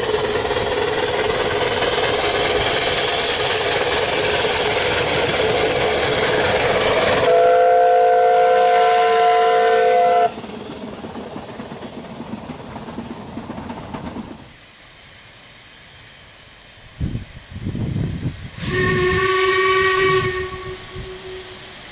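Narrow-gauge steam locomotive whistles: a long, loud hissing blast that turns into a clear whistle of several notes at once for about three seconds and cuts off sharply. Later come a few puffs of exhaust and a second, shorter whistle blast on a differently pitched set of notes.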